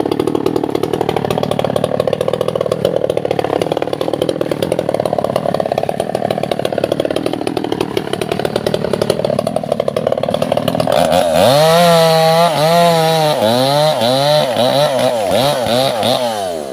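Two-stroke chainsaw cutting albasia wood, its engine running lower and wavering under the load of the cut. About eleven seconds in it jumps to a high, clear whine at full throttle, then revs up and down about twice a second before dropping off at the end.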